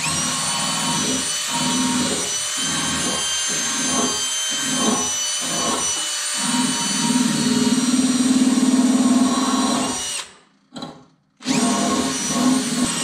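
Small cordless power tool running with a steady high whine while it cleans a brake line before the line is cut, the lower grinding varying as it presses on the line. It stops about ten seconds in and starts again a second or so later.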